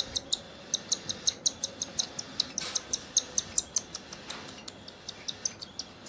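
Baby cockatiel chick giving a rapid run of short, high-pitched begging chirps, several a second, while being syringe-fed hand-feeding formula.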